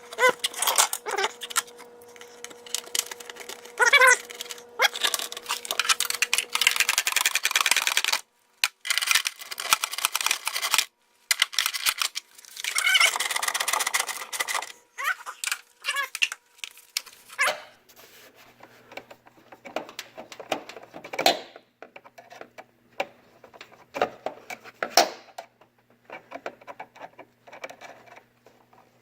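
Irregular clicks, rattles and rustling from parts being handled and fitted, broken into several stretches by abrupt cuts.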